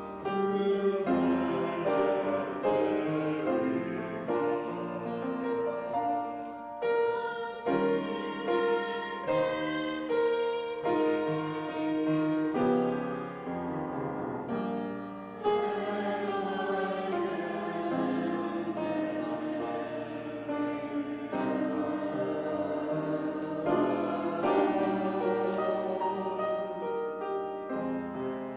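Church choir singing with piano accompaniment.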